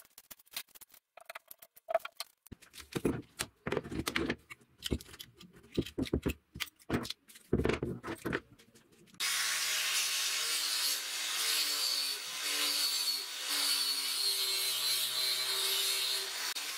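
Quick-release bar clamps being loosened and lifted off a freshly glued wooden cleaver handle: a run of irregular clicks and clacks. About nine seconds in, a steady angle grinder with a flap disc starts abruptly, sanding the wooden handle scales.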